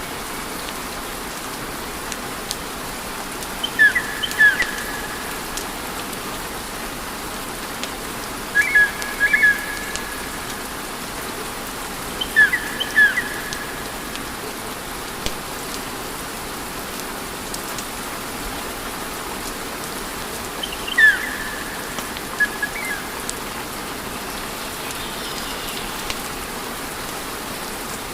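Wood fire burning with a steady hiss and scattered faint crackles. A few times, short high chirps come in quick pairs.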